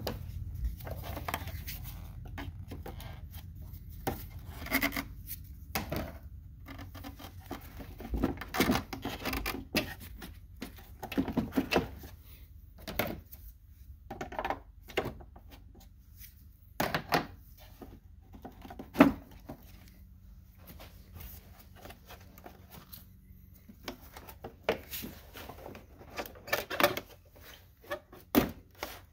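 Irregular clicks, knocks and rubbing from hands moving plastic wiring harnesses and their clips in a car's engine bay, with one sharper knock about two-thirds of the way through.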